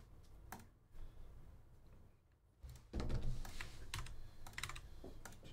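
Typing on a computer keyboard: scattered key clicks that grow busier about three seconds in, with a low rumble underneath from then on.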